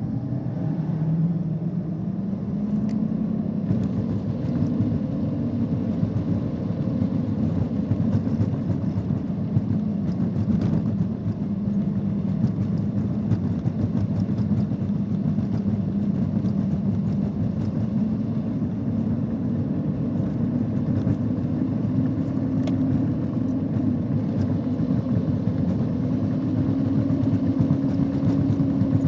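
Car engine running under steady driving with tyre and road noise, heard from inside the car. The engine note rises in pitch over the first couple of seconds, then holds steady, edging up slightly near the end.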